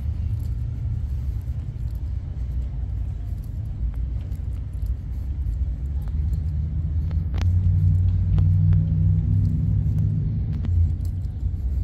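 Low rumble of a car engine running nearby, swelling louder a little past halfway, with a few faint clicks.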